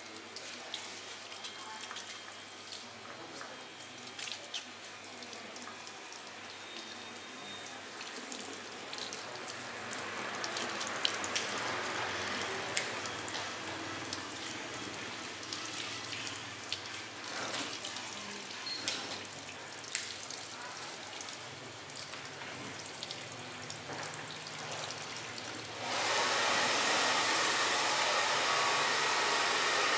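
Water running from a handheld shower sprayer over hair and splashing into a shampoo basin, with scattered small clicks and taps. About four seconds before the end a louder, steady hiss sets in abruptly.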